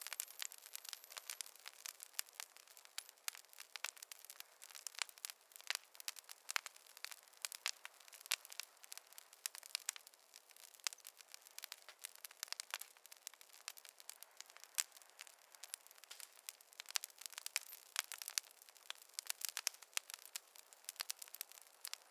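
Wood fire crackling in a fireplace: irregular sharp pops and snaps, several a second, over a faint hiss, with no low rumble.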